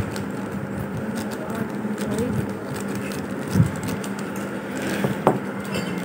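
Plastic courier mailer bag rustling as it is handled and opened, with a dull thump about three and a half seconds in and a sharp click a little after five seconds. A steady low hum runs underneath.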